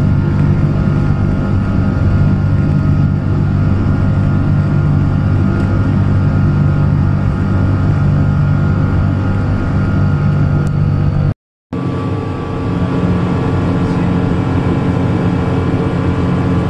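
Steady jet engine and airflow drone inside the cabin of a Boeing 777-200ER, with a strong low hum. It cuts out for a moment about eleven seconds in, then comes back slightly quieter.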